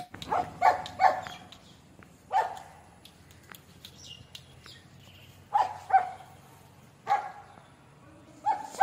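Shih Tzu puppies yapping in short, high-pitched yips: a quick run of three at the start, then single yaps and pairs with pauses of a second or more between.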